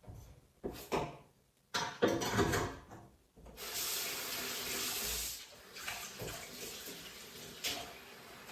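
A few knocks and clatters, then a kitchen tap turned on about three and a half seconds in, water running into the sink. The flow is strongest for a couple of seconds, then runs on more quietly.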